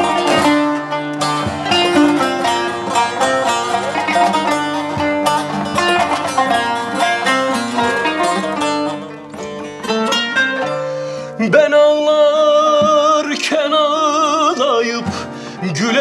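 Kanun plucked with metal finger picks, playing a quick run of notes as an instrumental interlude in a Turkish folk song. About eleven seconds in, a man's voice comes in singing over it with a wavering vibrato.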